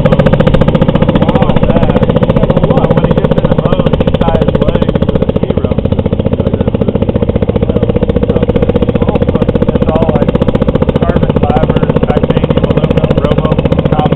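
Vintage Waterman outboard motor running steadily under way, a rapid, even stream of firing pulses over a low drone.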